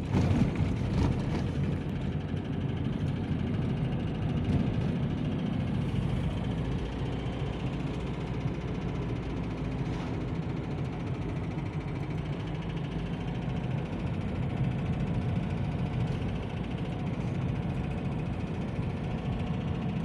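Steady engine hum and road noise heard inside the cabin of a car driving along a country road.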